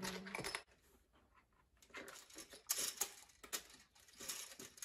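Light plastic clicks and clatters of Connect Four discs being handled on the tray and dropped into the plastic game grid, starting about two seconds in and coming irregularly.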